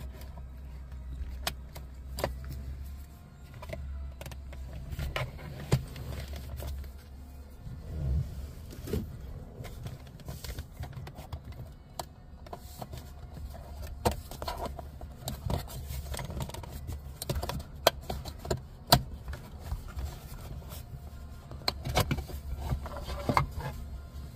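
Plastic clicking, tapping and scraping as a plastic trim tool pries the plastic cover off behind a Ram 3500's rear-view mirror, with scattered sharp clicks, the loudest in the second half, over a low steady hum.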